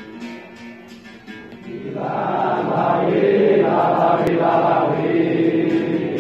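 Voices singing a capoeira song with musical accompaniment, swelling louder about two seconds in.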